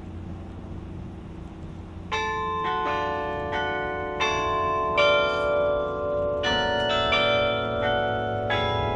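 Tower bells being played one after another: from about two seconds in, bells are struck every half-second to second, each tone ringing on and overlapping the next. A low steady rumble sits under the opening seconds before the first strike.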